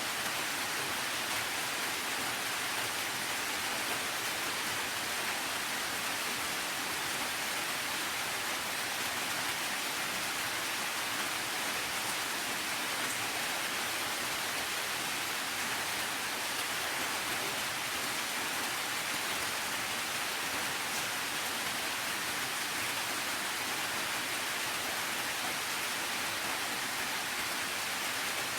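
Steady rain falling, a dense even hiss with no distinct drops or other events.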